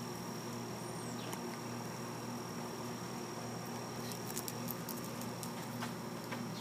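A German shepherd eating from its bowl, soft licking and chewing with a few small clicks about four to five seconds in, over a steady background hum with a faint high whine.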